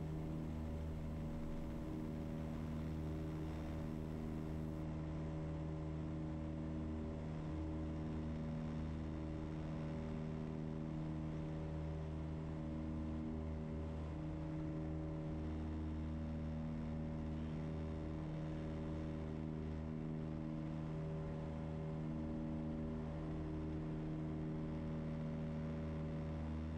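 The Tecnam P2006T's twin Rotax 912 four-cylinder engines and propellers running at takeoff power through the takeoff roll, lift-off and initial climb: a steady drone with a slow waver in its pitch bands.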